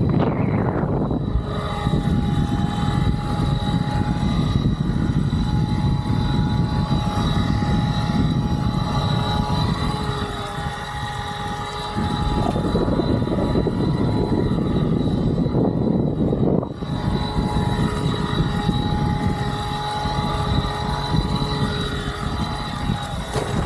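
Fliteboard Ultra eFoil's electric motor and propeller running under the board, a steady whine over a loud rush of wind and water. The noise dips briefly about ten seconds in and then comes back up.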